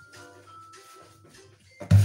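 Soft background music with held notes. Near the end there is one loud thump.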